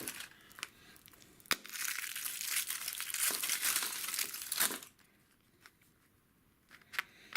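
Wrapper of a chocolate surprise egg being crinkled and torn open: a sharp click about a second and a half in, then about three seconds of dense crackling that stops suddenly, with a couple of small clicks near the end.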